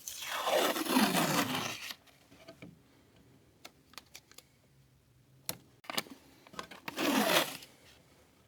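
Two drawn-out scraping sounds, the first about two seconds long and the second shorter near the end, each falling in pitch. Scattered light clicks and handling knocks come between them.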